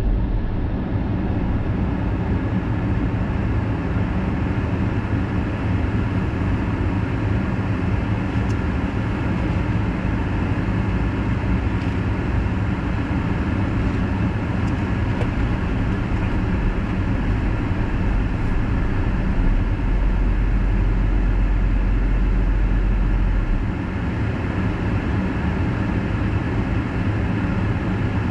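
Steady road and engine noise of a car driving at speed on an expressway, heard from inside the car. A deeper low rumble swells for about three seconds past the middle, then eases back.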